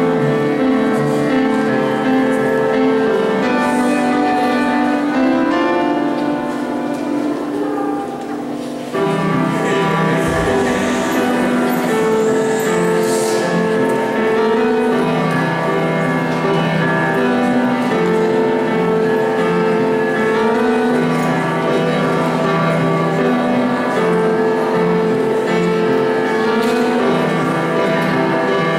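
Upright piano being played: a steady piece of held chords that grows softer for a few seconds and comes back in fuller about nine seconds in.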